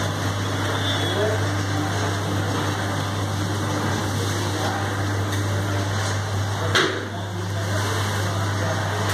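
Steady machine hum with an even hiss over it, from the running equipment of a wood-fired steam boiler, with one sharp knock about seven seconds in.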